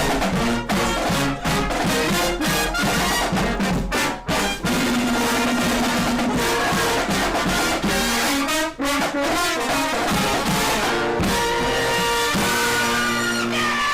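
Upbeat music led by brass horns over drums, with held notes and a steady beat throughout.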